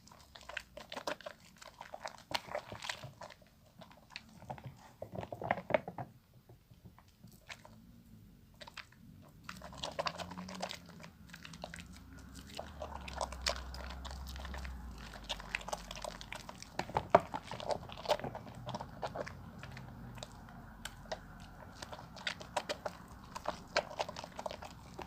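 A bar of soap being lathered: irregular wet squishing and crackling of soap and foam, growing denser over a steady rubbing hiss from about ten seconds in.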